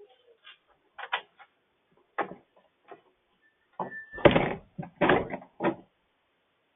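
A scattered series of knocks and thuds, heard through a Wyze video doorbell's narrow-band microphone. They are loudest a little past the middle, with a brief high beep just before the loudest knocks.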